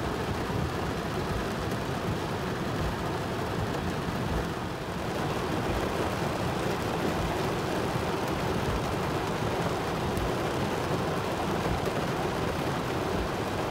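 Heavy thunderstorm rain drumming steadily on a car's roof and windshield, heard from inside the car as a dense hiss with a low rumble. It eases slightly about four and a half seconds in, then comes back as strong.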